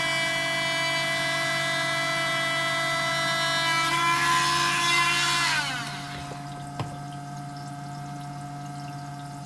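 Parkside rotary tool spinning a solid diamond drill bit in agate, a steady high whine that turns rougher for a second or two, then is switched off and falls in pitch as it spins down about six seconds in. A single click follows, over a fainter steady hum.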